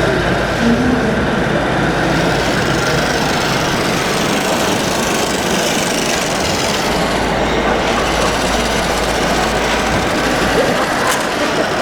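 Scale RC construction machines running: a steady, dense mechanical rumble and rattle from model trucks and earth-movers at work.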